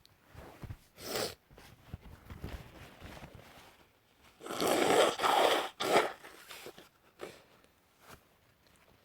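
Sneezing: a short sneeze about a second in, then a louder, longer sneeze around the middle, followed at once by one more sharp one.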